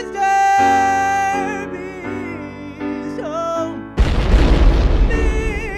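Background music with long held, wavering notes. About four seconds in, a loud boom breaks in for more than a second, and then the music carries on.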